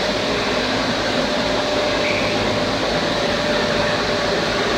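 Angle board (paper edge protector) production machine running steadily: electric motors and roller stands make a constant mechanical noise with a faint steady tone running through it.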